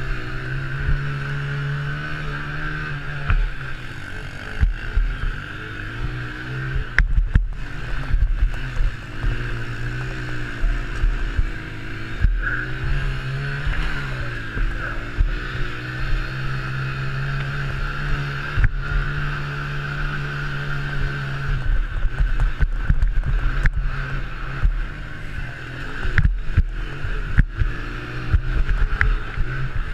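Honda TRX90 mini quad's small single-cylinder four-stroke engine running hard around a dirt track, its pitch rising and falling over and over as the throttle is worked through the turns, with occasional sharp knocks.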